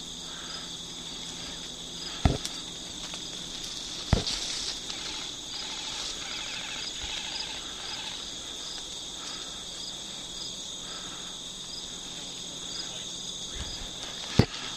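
Steady high, pulsing chorus of crickets and other insects, with a few sharp knocks about two seconds in, about four seconds in, and near the end.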